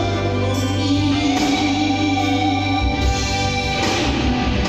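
Music: a vocal trio singing a slow, high ballad line in harmony, holding long notes, over guitar and bass accompaniment.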